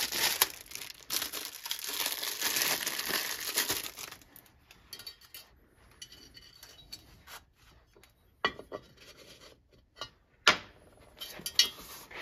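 Plastic packaging crinkling for about four seconds, then scattered light metallic clicks and taps as a new piston ring is handled and set into a cylinder bore.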